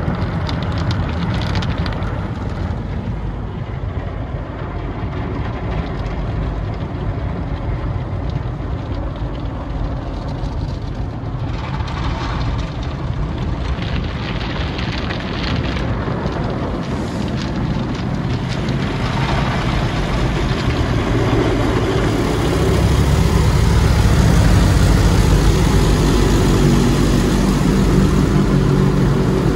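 Automatic tunnel car wash heard from inside the car: soft-cloth brushes scrubbing over the windshield and roof amid spraying water and foam, a steady wet churning. About two-thirds of the way through it grows louder, with a deeper rumble.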